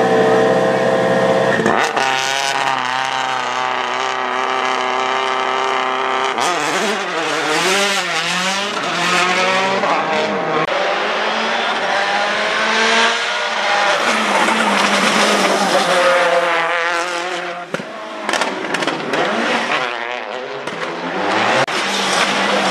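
Rally car engine at high revs, held for a few seconds, then climbing and falling again and again through gear changes as the car is driven hard through the stage, with some tyre squeal.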